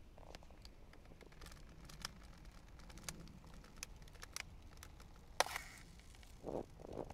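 Quiet outdoor sound: faint scattered clicks and ticks over a low rumble, a sharp snap about five and a half seconds in, and two soft crunches near the end.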